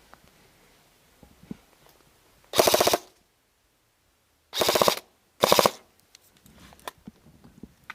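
Airsoft gun firing on full auto: three short bursts of rapid, evenly spaced shots, each about half a second long. The second and third bursts come close together.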